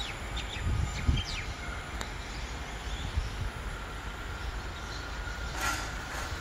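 Queensland Rail electric passenger train moving through the station: a low, uneven rumble with a faint steady high squeal over it, and a brief hiss a little after five and a half seconds in.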